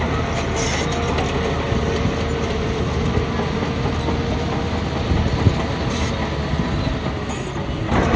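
Shantui DH17B2 XL crawler bulldozer running steadily while working, its engine drone mixed with the clanking and rattling of its steel tracks.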